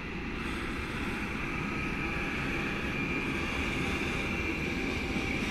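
Freight train hauled by a class 187 electric locomotive running past with an intermodal container train, a steady rumble of rolling wheels with a high steady whine on top, slowly growing louder as it approaches.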